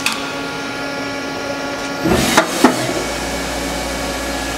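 Hardinge GT27SP CNC turning center running a looped program, its spindle and drives giving a steady whine. A short click comes at the start, and about two seconds in there is a clattering stretch with two sharp knocks.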